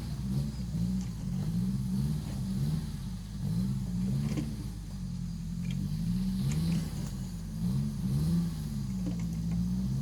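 A motor vehicle's engine revving up and down over and over, its pitch rising and falling every second or so.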